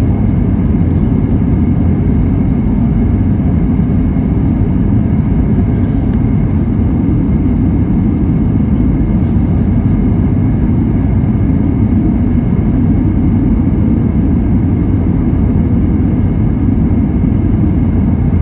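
Steady, loud rumble and rush inside an Airbus A320 cabin in flight: jet engine and airflow noise, low and even, with no distinct events.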